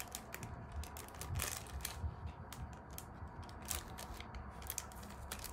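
Clear plastic bag of sweets being opened by hand: irregular small crackles and clicks of the plastic.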